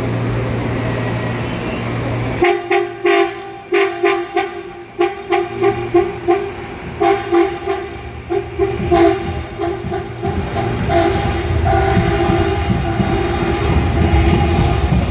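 Train horn sounding a long run of short, choppy blasts, roughly two a second, starting about two and a half seconds in, then longer held blasts. A steady low hum comes before it, and a low train rumble builds toward the end.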